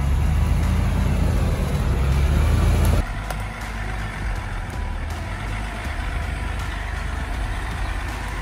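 Off-road 4x4 engine running steadily and loud for about three seconds, then the sound cuts suddenly to a quieter, steadier vehicle noise.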